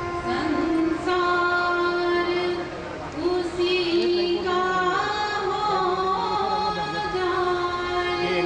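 Devotional song at a satsang, sung by a single high voice in long held notes that glide from pitch to pitch.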